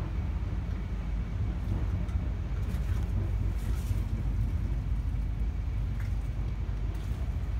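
Large off-highway dump truck's diesel engine idling: a steady low rumble that does not change.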